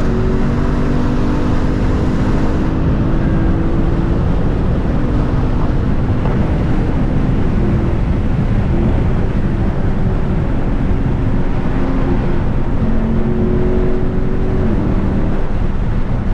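Lexus IS F's 5.0-litre V8 with an aftermarket exhaust running while driving, over steady road and wind noise. The engine note holds steady, then shifts and slides in pitch several times.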